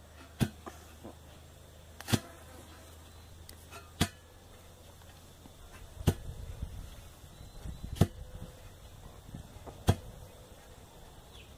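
Toothed galvanized steel pipe bailer dropped again and again into a hand-drilled well hole: six sharp knocks about two seconds apart as it strikes the bottom, each strike cutting soil up into the pipe.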